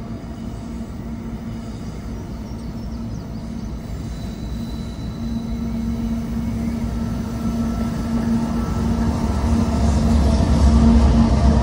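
Diesel-electric freight locomotives approaching and drawing level, their engines running with a steady hum and a low rumble that grows louder throughout and is strongest as the lead locomotive comes alongside near the end.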